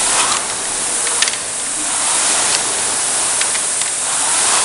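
Concept2 rowing machine's air flywheel whooshing in a steady rhythm, swelling with each stroke about once a second.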